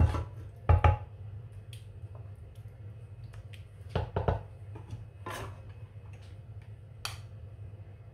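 Kitchen utensils knocking and scraping: a wooden spoon knocks against a pan and a glass baking dish while spreading meat sauce, with two sharp knocks at the start, two more about four seconds in, a short scrape, and a metal spoon clicking near the end. A steady low hum runs underneath.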